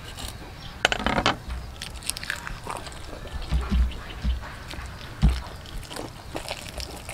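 Hands and a knife gutting a whole fish on a wooden chopping board: irregular wet squelching and scraping, with a few sharp knocks and dull thumps of the fish against the board.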